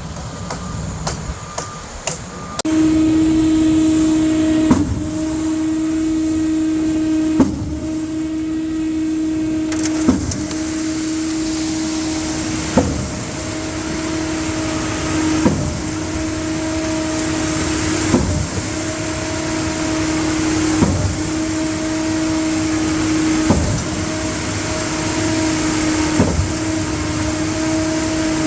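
Concrete pump running: a steady mechanical hum that starts suddenly a few seconds in, with a sharp knock about every two and a half seconds as the pump strokes.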